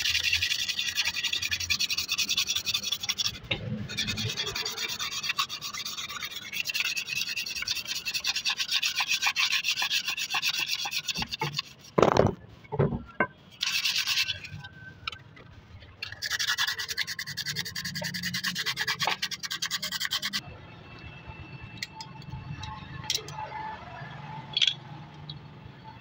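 Hand scrubbing the machined inner face of a Sonalika tractor's brake housing: a fast scratchy rasping in long spells, with two loud knocks about twelve seconds in. After about twenty seconds the rubbing stops and only quieter handling clicks remain.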